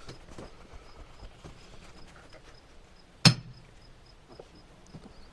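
A single sharp strike of a splitting maul on a steel wedge driven into an oak log, about three seconds in, with a short metallic ring after it.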